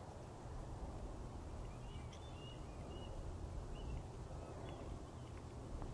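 A small bird chirping faintly: a scatter of short, high notes over a low, steady outdoor rumble.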